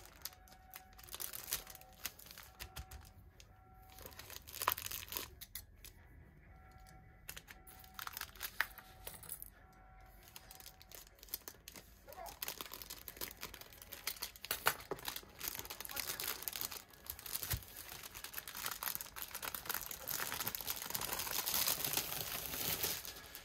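Clear plastic wrap on a magazine being handled, slit open and peeled off: scattered crinkles and taps at first, then dense continuous crinkling and tearing from about halfway through.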